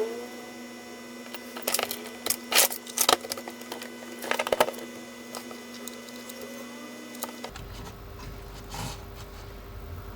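Clusters of sharp clicks and rattles over a steady electrical hum, about two seconds in and again near the middle. The hum stops abruptly about seven seconds in and a low rumble takes its place.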